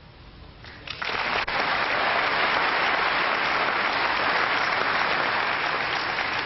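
Snooker audience applauding, breaking out about a second in after a sharp click of the balls and holding steady.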